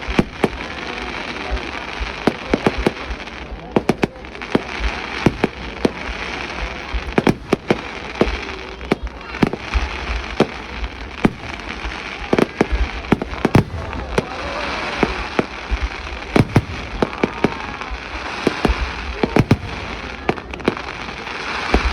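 Fireworks display: shells bursting in a rapid, irregular series of sharp bangs, several a second at times, over a continuous background din.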